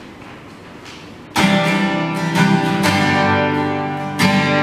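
Acoustic guitar: after a quiet moment, chords are strummed slowly, the first about a second and a half in, with a fresh strum roughly every second and a half, each chord left to ring.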